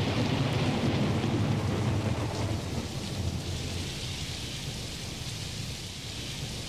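Rain-and-thunder storm effect: a steady hiss of rain over deep rolling thunder, loudest at first and slowly easing off.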